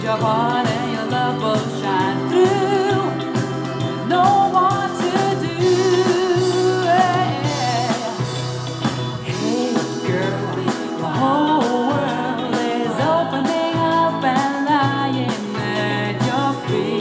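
Pop song with singing and guitar, played through small Canton Plus MX two-way satellite speakers, with little deep bass.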